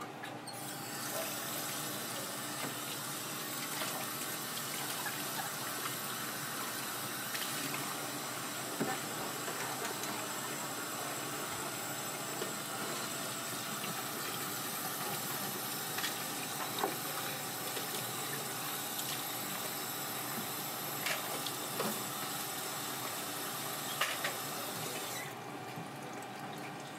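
Tap water running steadily into a stainless-steel sink, starting about half a second in and shutting off near the end, with a few light knocks.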